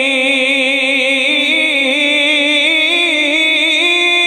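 A man's voice singing a naat without accompaniment, holding one long wavering note that draws out the end of a line and steps up in pitch partway through.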